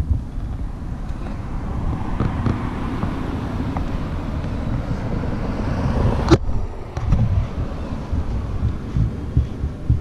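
Wind buffeting the microphone, with a vehicle passing on the road: its noise swells over a few seconds, peaks about six seconds in and cuts off abruptly with a click.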